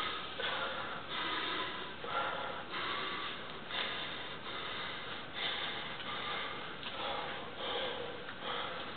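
A man's hard, forceful breathing through the nose in short puffs, roughly one a second, from the strain of bending a steel horseshoe by hand.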